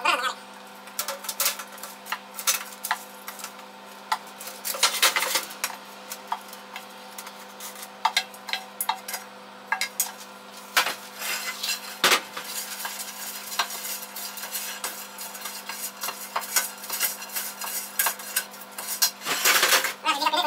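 A wooden spoon knocking and scraping against a stainless steel saucepan as sticky caramel popcorn is scraped out onto a baking tray: a string of irregular clicks, clatters and short scrapes, over a steady low hum.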